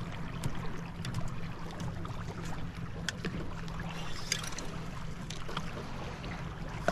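Small waves lapping and sloshing against the hull of an anchored fishing boat, with wind on the microphone. A few faint clicks and knocks come about three to four and a half seconds in.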